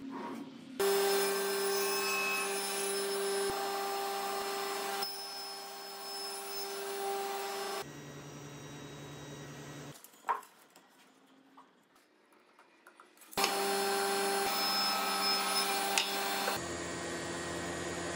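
Sliding table saw running and cutting a wooden board, a steady motor hum with the noise of the blade in the wood. The sound breaks off abruptly several times. A quieter stretch in the middle holds a single sharp knock of wood.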